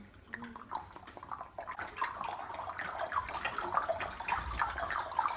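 A group of pupils clicking their tongues, many overlapping clicks that start sparse and build over the first couple of seconds into a steady dense patter like dripping rain. This is the first layer of a body-percussion thunderstorm imitation.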